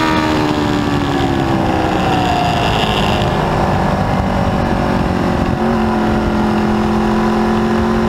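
Aprilia RSV4 V4 motorcycle engine heard from on board at track speed. Its pitch falls over the first couple of seconds, then steps up a little past halfway and climbs slowly, over a steady rushing noise.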